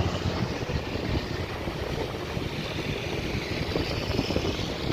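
Road traffic noise from a passing intercity bus: a steady rumble of engine and tyres.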